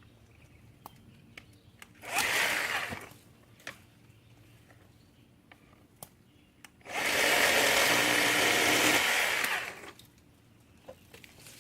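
WORX 40-volt battery-powered electric chainsaw cutting azalea limbs, its motor and chain whirring in two runs: a short burst that dies away about two seconds in, then a steady run of about three seconds starting about seven seconds in. Faint clicks of branches being handled come in between.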